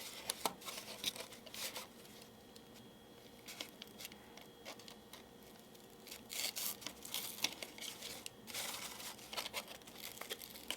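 Cardboard tissue roll and paper being handled: rustling and scraping in two spells, about the first two seconds and again from about six seconds on, quieter in between.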